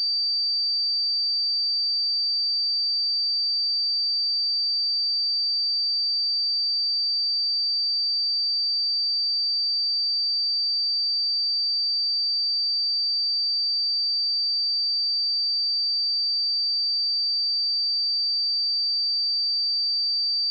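A pure 4645 Hz sine-wave test tone, one steady high-pitched whistle held at constant level.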